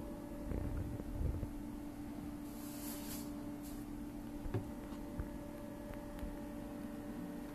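Steady low hum with a few soft handling bumps in the first second or so. About three seconds in comes a short brushing rustle of a hand moving over a paper drawing, and a single click follows soon after.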